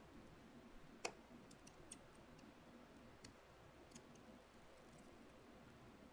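Faint scattered clicks of small repair tools and tiny phone parts being handled: one sharp click about a second in, then a few lighter ticks.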